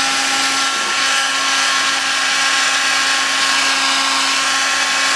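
Handheld heat gun running steadily, a loud rush of blown air with a steady motor hum.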